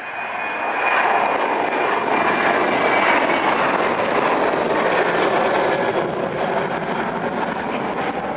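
Ryanair Boeing 737-800's twin CFM56-7B turbofans at take-off power as the airliner climbs out overhead: a loud, steady jet roar that swells about a second in and holds, with a faint high fan whine fading in the first two seconds.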